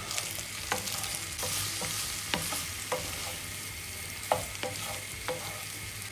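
Fusilli and turnip greens sizzling in guanciale fat in a non-stick frying pan while a wooden spatula stirs and tosses them. Irregular knocks and scrapes of the spatula against the pan sound over the frying, the loudest about four seconds in.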